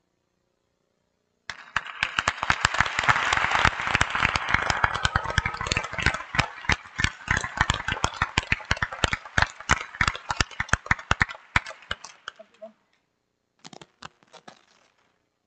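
Audience applause that starts suddenly, swells into a dense clatter of clapping, then thins out to scattered single claps and dies away, with a few faint claps near the end.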